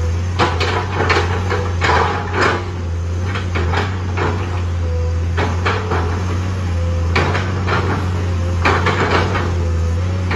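Komatsu PC210-10 hydraulic excavator's six-cylinder diesel engine running steadily under load, while its bucket chops into an old oil palm trunk with irregular sharp woody cracks and crunching knocks, several every few seconds.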